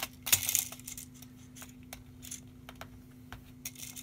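Backing film being peeled off double-sided tape on a plastic laptop screen bezel strip: a short crackling rasp about a third of a second in, then a few light clicks of plastic and tools being handled, and another brief rasp near the end.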